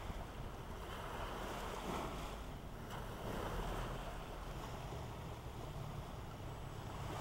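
Sea ambience of wind and small waves: a steady hiss that swells and eases every second or two.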